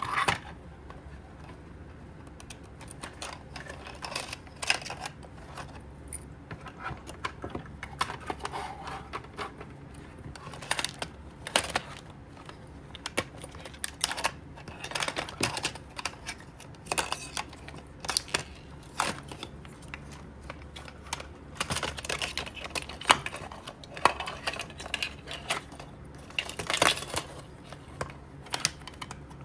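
Plastic parts of a Little Tikes Story Dream Machine toy projector clicking and knocking as it is taken apart by hand: irregular small clicks, with a few louder knocks.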